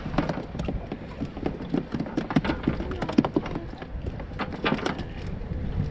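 Freshly caught herring flopping and slapping against the bottom of a plastic tub while they are pulled off a sabiki rig: an irregular patter of light taps and knocks.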